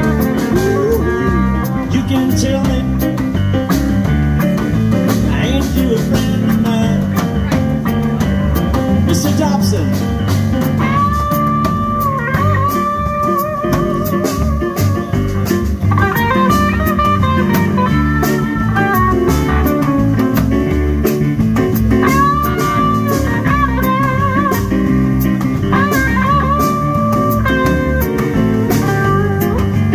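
Blues band playing live: a Les Paul-style electric guitar takes the lead with long held, bent notes and vibrato over drum kit, upright bass and keyboard.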